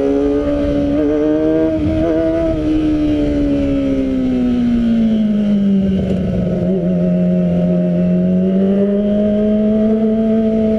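Kawasaki ZX-25R 250 cc four-cylinder engine running under way through an Arrow exhaust, a smooth high note. Its pitch climbs slightly in the first two seconds, sinks over the next few as revs ease, then levels off and edges back up.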